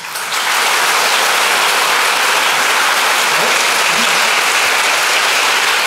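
Audience applauding: dense, even clapping that swells up within the first half second and then holds steady.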